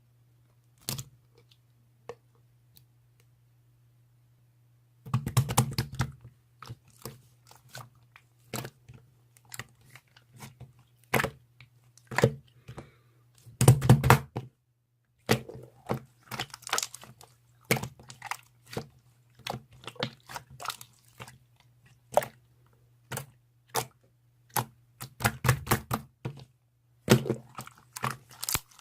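Irregular sharp clicks, taps and knocks in close-up, some coming in quick clusters, over a faint steady low hum.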